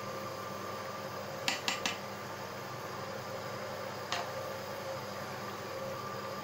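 A plastic spatula stirring a steaming mushroom and chicken sauté in a pot, knocking against the pot three times in quick succession about a second and a half in and once more near four seconds. A steady hum runs underneath.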